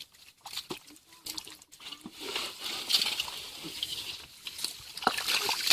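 Water sloshing and trickling, with scattered sharp clicks, and a steadier splashing hiss from about two seconds in.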